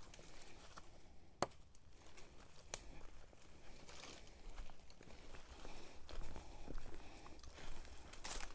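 Faint rustling and scuffing, with two short sharp clicks about a second and a half apart early on.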